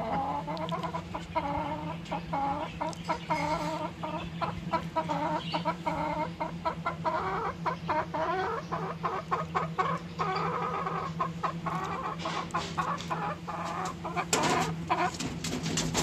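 Aseel chickens clucking in a continuous run of short calls, over a steady low hum. A louder burst of noise comes near the end.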